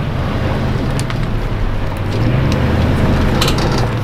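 A vehicle engine running with a steady low hum.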